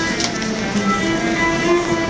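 Cello playing an instrumental passage of held notes, several tones overlapping.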